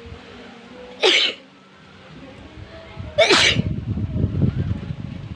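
A person sneezing twice, about two seconds apart. Each is a sharp, loud burst that drops in pitch as it ends. After the second sneeze comes a spell of low, irregular rumbling noise.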